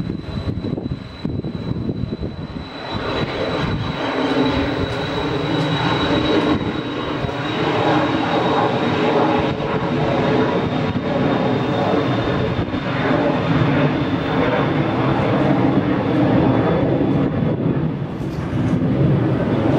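Twin-engine business jet on its takeoff roll and liftoff: engine roar that swells a few seconds in and stays strong, with a thin, steady high whine above it that slowly sinks in pitch.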